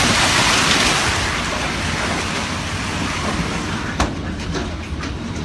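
A heavy hailstorm: hail and rain pelting down in a dense hiss over a low rumble. The hiss thins after about a second, and a sharp knock comes about four seconds in, followed by scattered single hailstone strikes.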